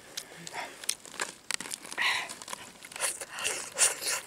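Close-up eating sounds of grilled fish being bitten and chewed straight off the leaf: an irregular run of short wet clicks, smacks and crackles.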